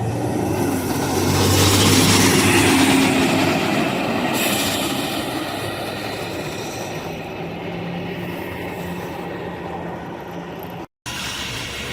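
A bus driving past, its engine and road noise swelling to a peak about two seconds in and then slowly fading.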